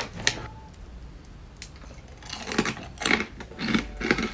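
Fried pork rinds (chicharrón) being chewed, with crisp crunches about three a second in the second half, after a single sharp click near the start.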